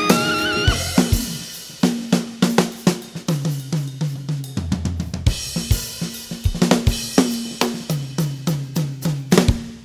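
Jazz drum kit solo: snare, toms, bass drum and cymbals struck in quick, uneven strokes, the toms ringing with a short falling pitch. A tenor saxophone's rising phrase ends in the first second.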